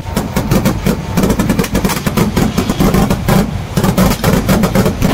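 Vedikettu fireworks barrage: many firecracker bangs a second run together into a continuous rattling crackle.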